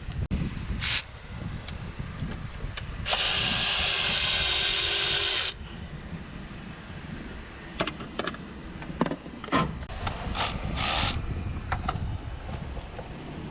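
A power tool runs steadily for about two and a half seconds, starting about three seconds in. Short metallic clicks and knocks of tool work come before and after it.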